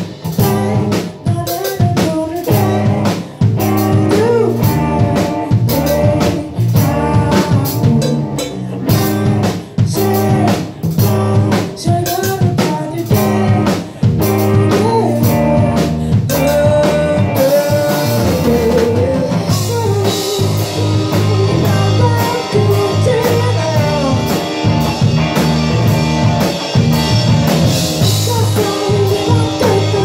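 Live rock band playing: a woman singing lead over electric guitar and a drum kit with a steady beat.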